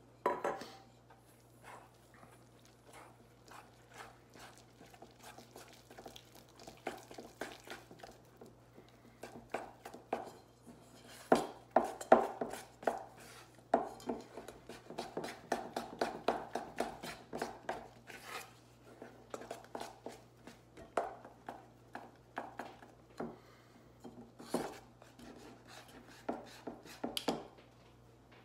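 Small whisk stirring and scraping in a stainless steel bowl, mixing icing sugar and syrup into a thick icing: an irregular run of metal clinks and scrapes, busiest in the middle.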